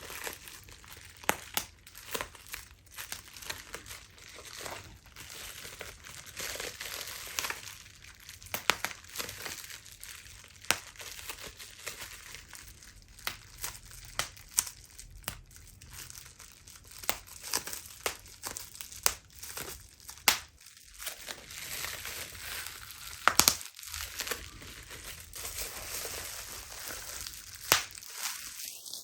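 Plastic bubble wrap being handled and squeezed: continuous crinkling with irregular sharp pops as bubbles burst, a few of them much louder than the rest.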